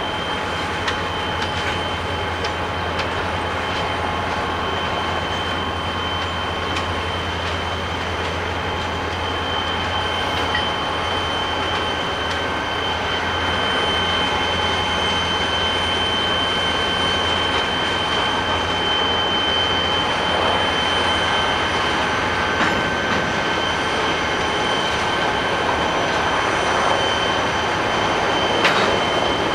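A freight train's cars rolling slowly through a rail yard, their steel wheels squealing in a steady high tone. A low hum under it fades out a little past halfway.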